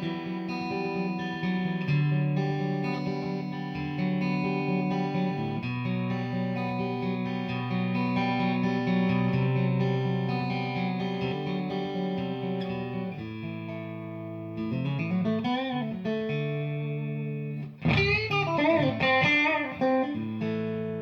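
Electric guitar, a Fender American Standard Stratocaster, played through a Victory V40 valve amplifier head. Sustained ringing chords make up most of the stretch, then lead notes with wavering bends about two-thirds of the way in and again near the end.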